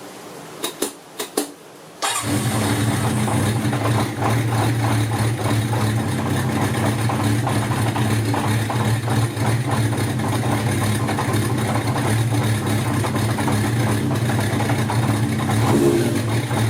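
Kawasaki Zephyr 400 inline-four engine on newly fitted Brisk racing spark plugs: a few clicks, then it catches about two seconds in and runs steadily.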